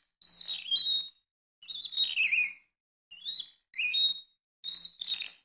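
A series of about seven short, high-pitched chirps, each falling in pitch, with brief gaps between them.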